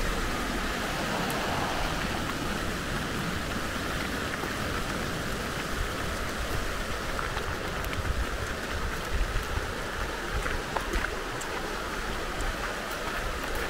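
Steady rushing water, with scattered faint ticks in the second half.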